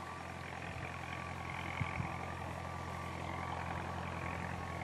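Boeing 747-8 freighter's four GEnx turbofan engines running on the ground, a steady jet whine with a thin tone that wavers slightly in pitch over an even rushing noise and a low hum.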